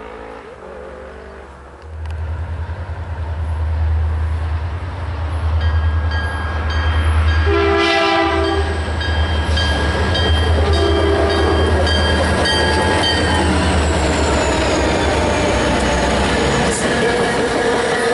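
Two EMD GP40-2-type diesel locomotives leading a passenger train past, their engines a deep steady rumble from about two seconds in. The locomotive horn sounds repeatedly between about six and thirteen seconds. Then the train rolls on past.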